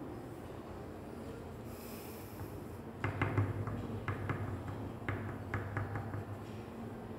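Crayon being rubbed in quick back-and-forth strokes on paper lying on a wooden desk: a run of short scratchy strokes starting about three seconds in.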